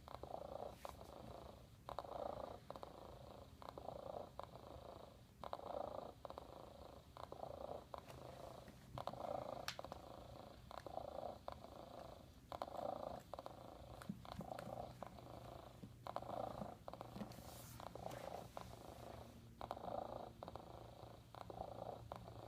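Hasbro Joy For All robotic cat playing its looped recorded purr, swelling and fading in a steady rhythm about every second and a half.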